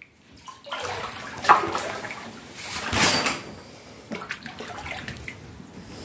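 Floodwater sloshing and splashing around a person's legs as they wade through it, in a few separate surges.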